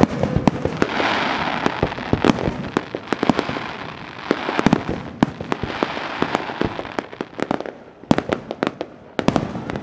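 Fireworks display: a rapid string of bangs with dense crackling between them, thinning to fewer, separate bangs near the end.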